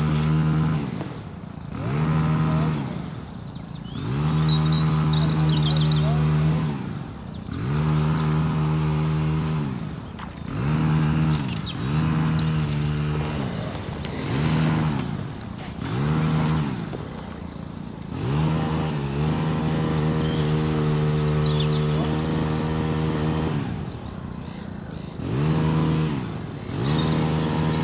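Petrol strimmer revving up to full throttle and dropping back to idle over and over, each burst lasting from about one to four seconds.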